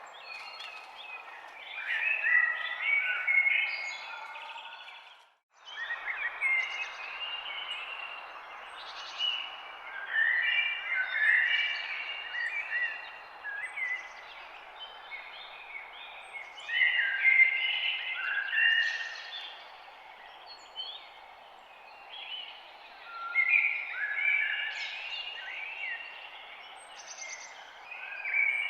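Several songbirds chirping and trilling in repeated bursts over a steady background hiss of forest ambience. The whole sound drops out for a split second about five seconds in, like an edit in the recording.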